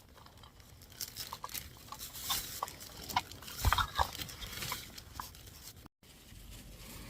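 Scattered rustling, crinkling and small clicks from things being handled at close range. The sound cuts out for a moment near the end.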